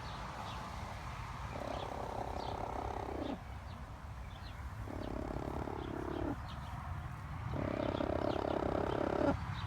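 Domestic hen making an unusual long, drawn-out call three times, each held for over a second and dropping in pitch at the end. Faint short high chirps are heard in between.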